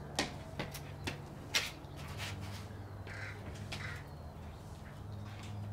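Footsteps tapping on a concrete patio, about two a second, for the first second and a half. A little after the middle come two short, harsh, bird-like calls about half a second apart. A steady low hum runs underneath.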